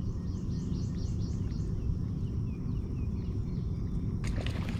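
A songbird sings a quick run of high, descending chirps, with a few fainter ones later, over a low steady rumble. About four seconds in comes a brief splashing burst.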